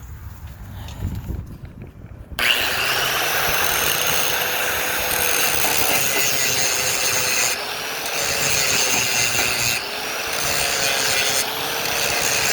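Electric angle grinder starting abruptly about two seconds in and running steadily, its whine dipping slightly in pitch each time it is pressed to the metal, grinding down a fresh weld on a steel door hinge.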